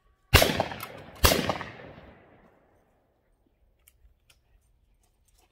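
Two shotgun shots from a Tristar Trinity 16-gauge over-and-under, one barrel after the other, just under a second apart, each followed by an echo that fades over about a second.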